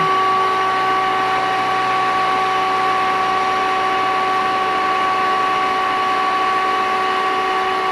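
Vacuum cleaner running steadily: a motor whine with several steady pitches over a rush of air.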